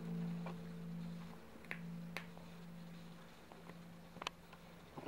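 A cat chewing a mouse, with a few sharp crunches of small bones snapping, the loudest about four seconds in.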